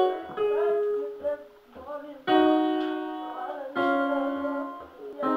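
Keyboard music: sustained chords, a new one struck every one and a half to two seconds, with shorter wavering notes between them.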